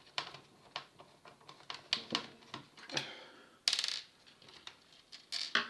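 Small metal screws and parts clicking and tapping as a cassette deck is taken apart, with a short metallic clatter of small pieces about three and a half seconds in.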